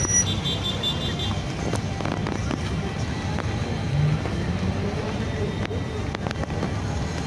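Outdoor crowd ambience: music playing over a steady low rumble, with scattered voices.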